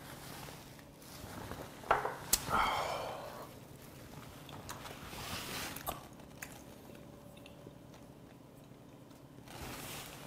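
Close-miked mouth sounds of a man eating raw filefish liver after a shot of soju: two sharp clicks and a short breathy exhale about two seconds in, then soft chewing and lip smacks.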